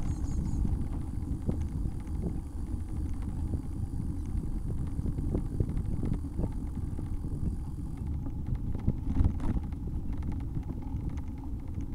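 Wind buffeting the microphone over the low rumble of a bicycle being ridden, with scattered light rattling knocks.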